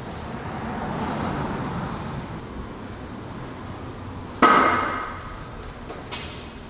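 Weight plates on a plate-loaded leg machine clank once, a sharp metal hit with a short ringing tail, about four and a half seconds in.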